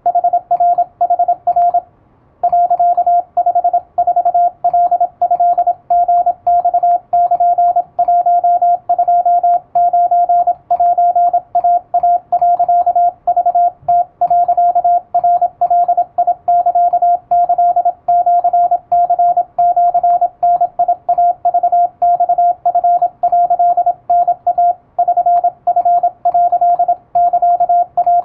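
Morse code sidetone from an electronic keyer: one steady mid-pitched tone keyed rapidly on and off in dots and dashes, sending Japanese Wabun code telegram practice text. There is a short break about two seconds in.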